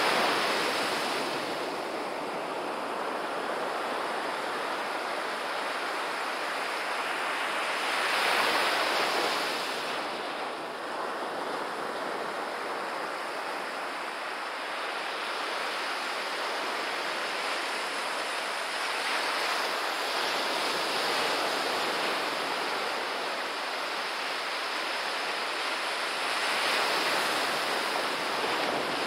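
Ocean surf: small waves breaking and washing up a sand beach, a continuous wash that swells as each wave breaks, about three times. Some wind rumbles on the microphone.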